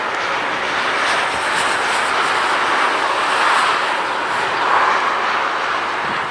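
Airbus A320neo's Pratt & Whitney PW1100G geared turbofans running as the airliner rolls along the runway: a steady jet noise that swells and eases a couple of times.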